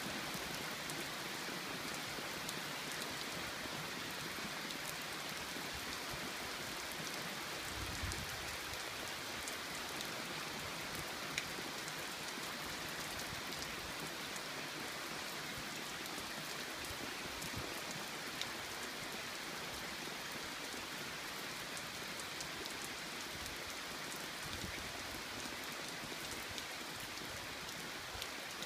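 Steady rainfall, with many individual raindrops ticking close by. A brief low bump about eight seconds in.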